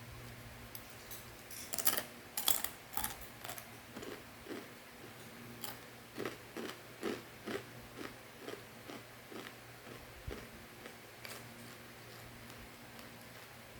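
Crunchy fried macaroni snack being bitten and chewed. A cluster of sharp crunches comes about two seconds in, then muffled chewing about twice a second that dies away after about ten seconds.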